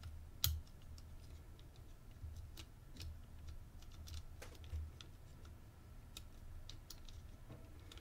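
Faint, irregular clicks of the number wheels of a Master Lock Pro Series 1178 four-dial combination padlock being thumbed round one position at a time, with one sharper click about half a second in. The wheels are being felt for their loosest position to decode the combination.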